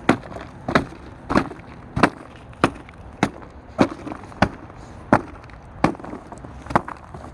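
Chocolate being mashed by repeated pounding: about eleven sharp knocks in a steady rhythm, a little under two a second.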